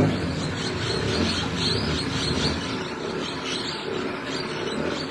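Birds chirping in quick repeated high notes over the steady low hum of a moving vehicle.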